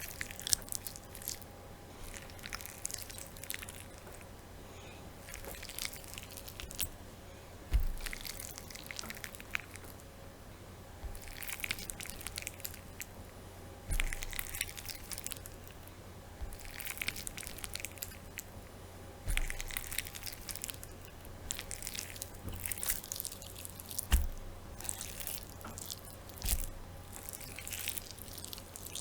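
Raw meat being kneaded by one hand: irregular wet squelching and sticky clicking in bouts, with a few soft thumps as the meat is pressed down.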